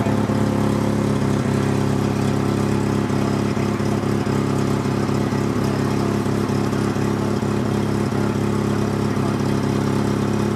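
Vehicle engine idling steadily at an even pitch.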